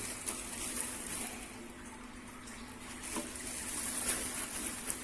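Soft rustling and crinkling of plastic wrapping and packing material as a boxed hot air station is handled, with a few light handling ticks over a faint steady hum.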